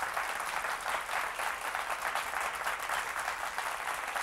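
Studio audience applauding steadily: many people clapping at once.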